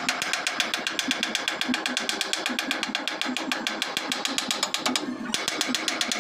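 Rapid, even mechanical clicking, about a dozen clicks a second, breaking off briefly about five seconds in and then starting again.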